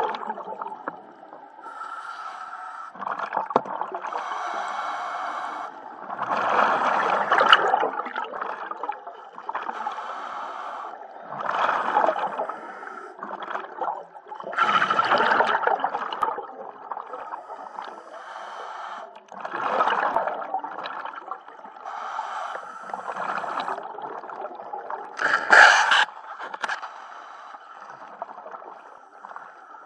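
Scuba diver breathing underwater through a regulator: a hissing inhale alternating with a louder bubbling exhale, one breath every three to five seconds.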